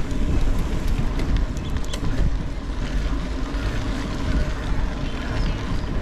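Mountain bike riding on a rough village road: steady tyre rumble and frame rattle with scattered clicks over the surface, and wind buffeting the camera microphone.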